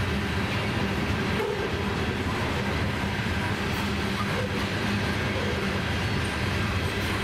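A freight train of steel coal hopper cars rolling past at a steady speed: a continuous rumble of wheels on rail with a steady low hum underneath.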